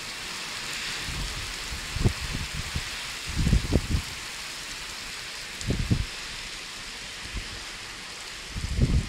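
Steady heavy rain during a thunderstorm, a constant hiss, broken by a few short low thumps, the loudest about three and a half seconds in.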